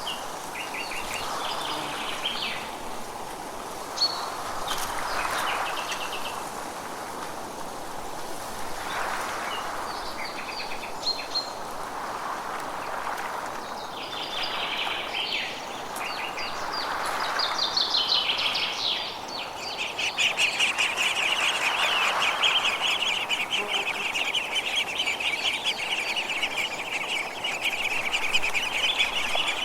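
Forest birds chirping and calling in short repeated phrases over a soft hushing background. About two-thirds of the way in, a rapid, steady high trill starts and keeps going.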